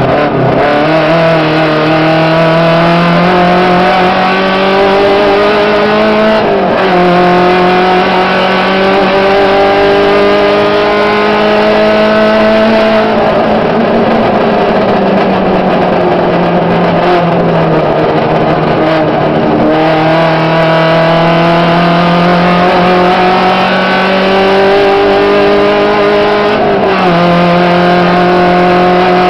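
Volkswagen Gol rally car's engine driven hard on a gravel road, heard from inside the cabin: the revs climb and drop sharply at each upshift, about a second in, around six and a half seconds and near the end, with the revs falling off as the driver lifts around thirteen seconds before pulling up again. Gravel and road noise run underneath.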